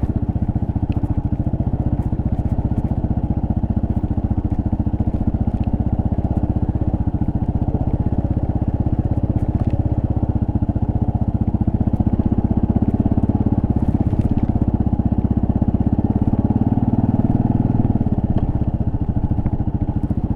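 Kawasaki KLR650S single-cylinder engine running steadily as the motorcycle rides along a dirt road, pulling a little harder about three quarters of the way through.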